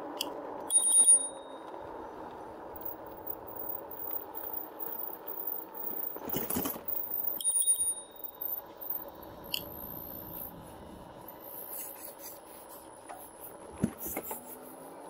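Rad Power Bikes RadRover electric fat-tyre bike riding along: a steady hum from its hub motor and tyres, with two short metallic pings, a bump about six and a half seconds in and a sharp click near the end.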